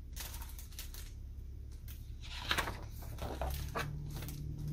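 Paper rustling and crinkling as the page of a large picture book is turned, a few short rustles over a low, steady hum.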